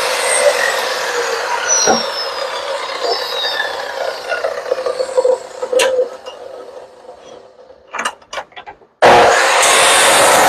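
Abrasive chop saw cutting half-inch square steel bar, its whine falling as the motor spins down and the noise fades away over the first several seconds. A few sharp clicks follow, then a loud steady noise starts abruptly about nine seconds in.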